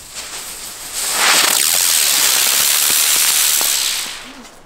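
Funke Rauchspurgeschwader smoke-trail firework bird taking off: a few faint crackles, then about a second in a loud, even hiss of its burning motor that lasts about three seconds and dies away as it climbs out of earshot.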